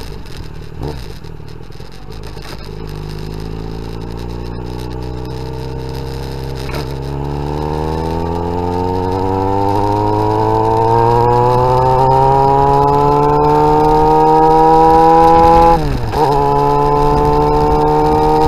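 Yamaha XJ6N's inline-four engine with an aftermarket exhaust, heard from on the bike while riding. It starts low and quiet, then rises steadily in pitch and loudness as the bike accelerates. About sixteen seconds in, the note drops sharply for a moment and then holds steady.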